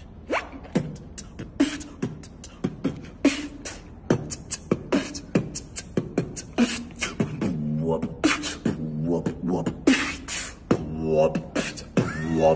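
Beatboxing: a person making drum sounds with the mouth, a quick run of sharp kick and snare hits, with hummed low tones mixed in from about halfway through.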